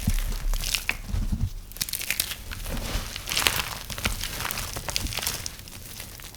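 A knife cutting through dry, brittle soap, giving an uneven run of crisp crackling and crunching that thins out near the end.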